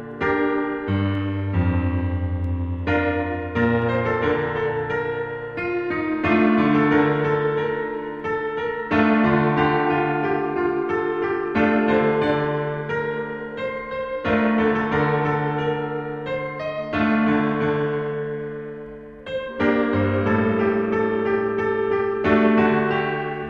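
Piano music without singing: chords struck every second or two and left to ring, over low bass notes.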